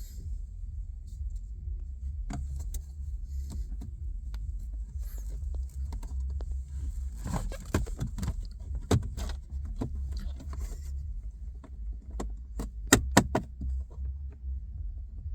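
Lada Granta FL car noise: a steady low rumble with irregular clicks and knocks over it, and a cluster of sharp knocks about 13 seconds in.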